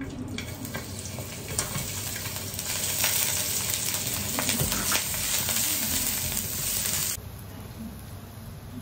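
Sliced garlic sizzling in hot oil in a nonstick wok as it is tipped in and stirred with a spatula, with light clicks of the spatula against the pan. The sizzle grows louder about three seconds in and drops suddenly to a softer hiss about seven seconds in.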